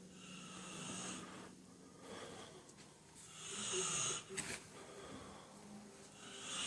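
A sleeping man snoring softly: wheezy, hissing breaths that swell about every three seconds.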